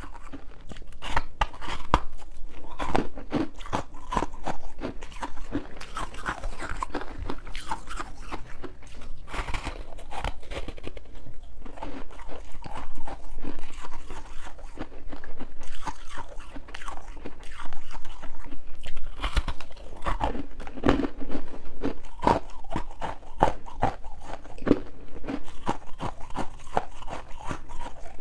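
Powdery frost ice being bitten and chewed: a dense, irregular run of crisp crunches, with a few louder bites.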